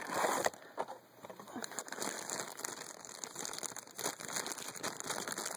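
Cardboard blind box being opened and the black foil blind bag inside handled, crinkling and rustling with many small crackles, loudest in the first half second.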